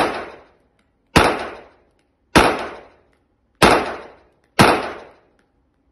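Hugo Schmeisser 1911 pistol in .45 ACP being fired: a shot at the very start, then four more about a second apart. Each sharp report rings out with a short echo in an indoor shooting range.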